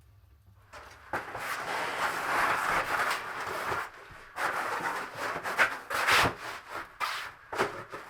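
Rubbing, scraping sounds in two stretches: a long one from about a second in until near four seconds, then, after a short pause, a run of shorter strokes.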